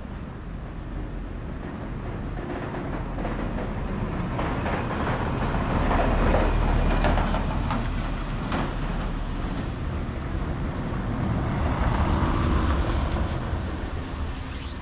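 Road vehicles passing close by on a city street, two passes in turn: a low rumble and tyre noise that swells to a peak about halfway through, fades, and swells again near the end.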